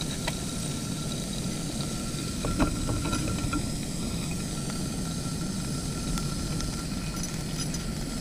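Camp cookstove burner running under a frying pan: a steady low rush, with a few small clicks and one sharper knock about two and a half seconds in.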